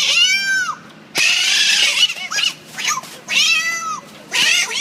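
Cat meows imitated on a mouth-held reed whistle (animal-call silbato), the pitch bent by moving the lips: several meows that rise and fall in pitch, with breathy hissing bursts between them.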